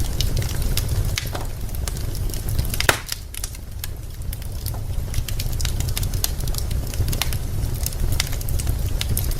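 Wood fire crackling in a fireplace: irregular sharp pops and snaps of burning logs, with one louder pop about three seconds in, over a low steady rumble of the flames.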